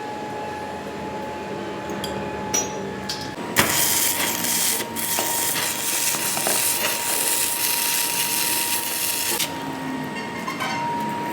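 A metalworking machine runs with a steady whine. From about three and a half seconds in to about nine and a half seconds it gives a loud hissing stretch of metal being cut or ground, then it drops back to the whine.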